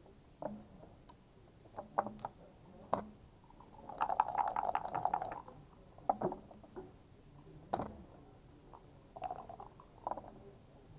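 Backgammon checkers clacking as they are moved on the board, with a rattle of many quick clacks about four seconds in as the dice are gathered into the cup, and a sharp click of the game clock being pressed about six seconds in.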